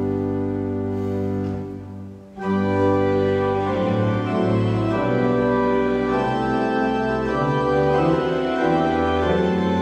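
Church organ playing: a held chord dies away about two seconds in, then a new passage begins in full sustained chords with moving inner notes.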